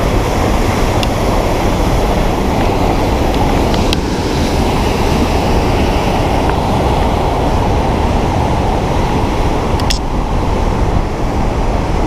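Loud, steady roar of a waterfall's rushing water and spray, with wind buffeting the microphone.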